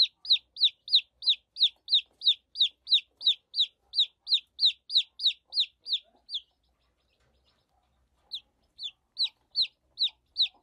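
A baby chicken (chick) peeping: a steady run of short, high cheeps, each falling in pitch, about three a second, stopping for about two seconds past the middle and then starting again.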